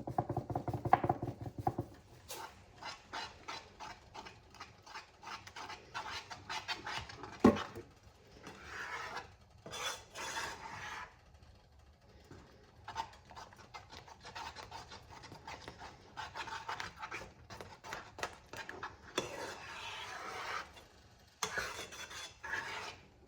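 A short rasping as pepper is added, then a utensil stirring and scraping the bottom of a pot of thickening cheese sauce in irregular strokes. The sauce is sticking and has started to burn.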